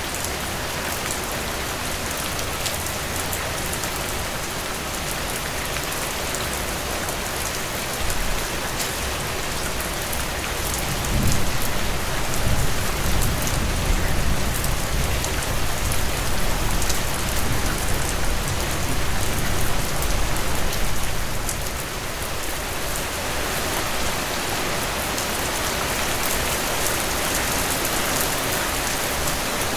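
Heavy rain falling steadily as a dense hiss of drops. A low rumble swells in about a third of the way through and fades out before two-thirds.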